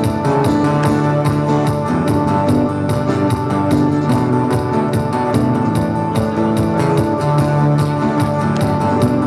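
Two acoustic guitars strummed together in a quick, steady rhythm.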